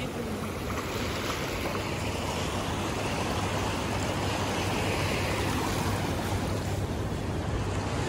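Steady rush of the Ganges flowing past the stones at its bank, mixed with wind on the microphone.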